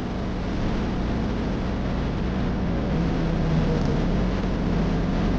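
Steady road and engine noise of a car being driven at speed.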